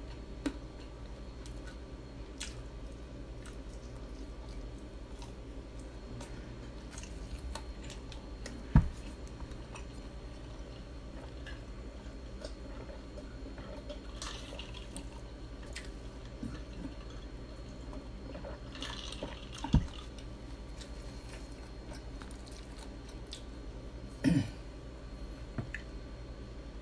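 A person eating fried chicken close to the microphone: soft chewing and wet mouth sounds, with sips and swallows from a glass of iced cola around the middle. Three sharp knocks about 9, 20 and 24 seconds in are the loudest sounds.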